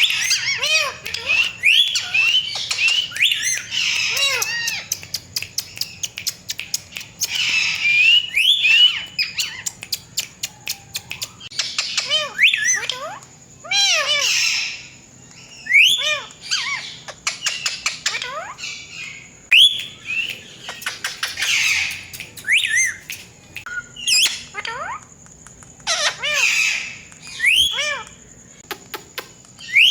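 Ringneck parakeets squawking and chirping: a long run of short, harsh calls that rise and fall in pitch, mixed with bursts of rapid clicks.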